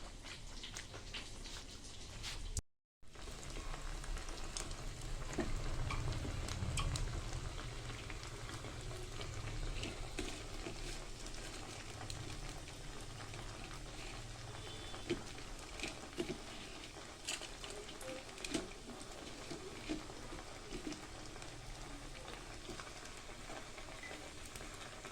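Cutlets frying in hot oil: a steady sizzle with scattered crackles and pops. The sound drops out completely for a moment about three seconds in.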